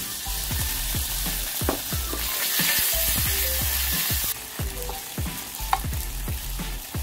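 Tofu cubes sizzling as they fry in hot olive oil in a nonstick pan, stirred with a wooden spatula. The sizzle is loudest for about the first four seconds, then drops suddenly.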